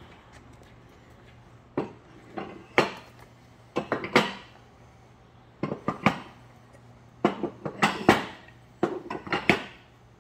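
Hard plastic filler plunger heads clacking and knocking against a stainless steel cleaning cart and against each other as they are hung on its pins, in irregular clusters of sharp knocks, over a low steady hum.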